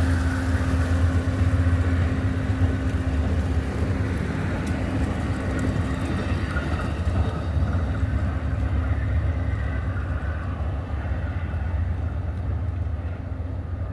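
Amtrak diesel passenger train pulling out of the station: a steady low rumble of locomotive and rolling cars with a humming tone that fades out about halfway through, the whole sound slowly dying away as the train moves off.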